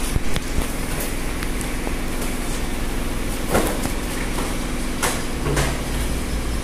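Cartons of motor oil being unloaded and stacked: a few separate dull thumps and scrapes over a steady mechanical hum.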